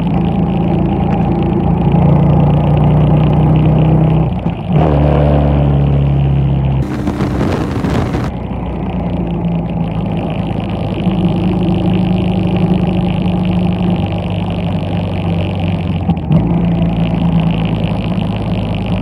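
Yamaha Bolt's air-cooled V-twin running under way through a ForceWinder full-system exhaust. There is a brief dip about four and a half seconds in, after which it runs at a lower pitch. A rush of noise follows about seven seconds in and lasts about a second and a half.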